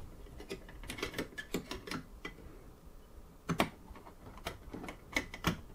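Light, irregular clicks and taps of a screwdriver being fitted down through a twin-tower CPU cooler onto its spring-loaded mounting screw, with one louder knock about three and a half seconds in.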